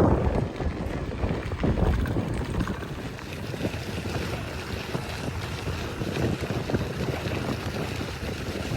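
Wind rushing over the microphone of a moving bicycle, heaviest at the start and easing off, with irregular small knocks and rattles from the ride.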